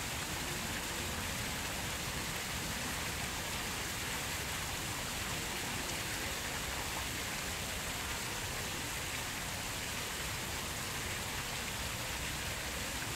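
Water from a tiered park fountain falling and splashing into its basin: a steady, even splashing hiss.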